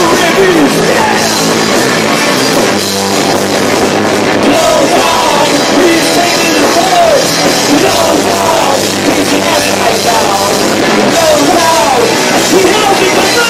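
Live punk rock band playing loud and steady: electric guitars, bass and drums, heavily distorted by a camcorder microphone overloaded by the volume.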